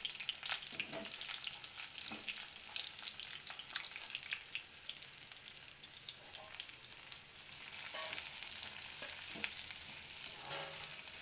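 Sliced onions sizzling in hot oil in a kadai, with a spatula scraping and clicking against the pan as they are stirred.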